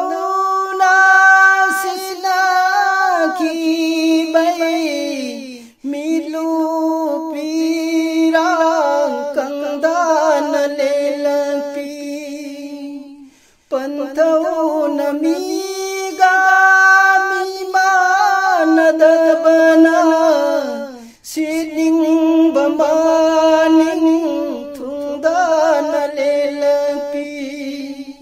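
A solo voice singing a Manipuri-language naat, an Islamic devotional song, without accompaniment, in four long phrases of held, wavering notes with short breaks between them; the third phrase repeats the melody of the first.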